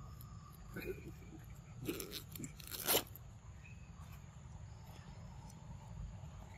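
A young macaque crunching and chewing food, a few crunches between about one and three seconds in, the last the loudest.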